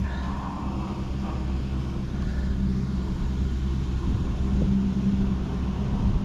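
Chairlift running: a steady low mechanical hum and rumble from the haul cable and its machinery, swelling a little about four and a half seconds in.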